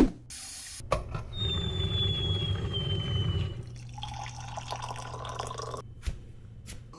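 Liquid pouring into a mug from a humming drinks machine, with a thin, slowly falling whine over the hum for a couple of seconds. The sound changes about four seconds in and breaks off briefly near the end.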